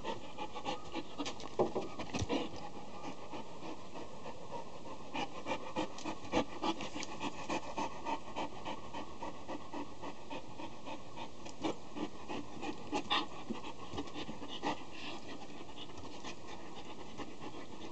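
Young Akita panting close by, with scattered soft clicks and rustles as it mouths and noses at a hand.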